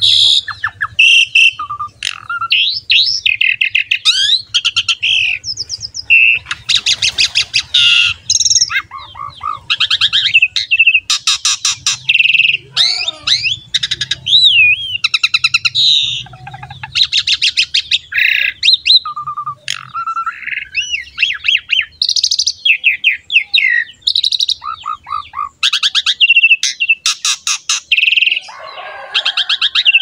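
Pied starling (jalak suren) in full song: a loud, almost unbroken stream of varied phrases, with fast trains of repeated chattering notes, whistled notes gliding up and down, and harsher calls.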